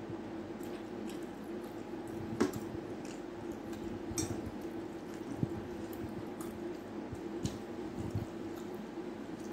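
Rice and moong dal being mixed by hand and eaten off a steel plate: wet squishing of the food, with light clicks of fingers and food against the plate, the sharpest about two and a half seconds in. A steady low hum runs underneath.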